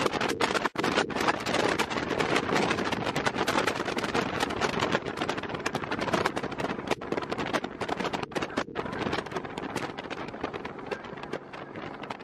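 Wind rushing over the microphone on a motorcycle at road speed: a steady, noisy rush with a few brief dropouts, easing off near the end.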